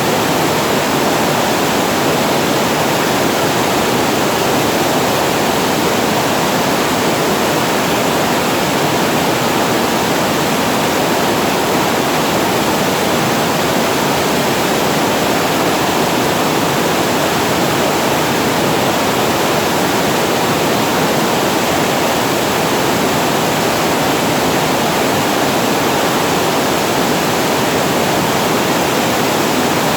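Water pouring over a reservoir weir as a small waterfall: a steady, unbroken rush of falling water.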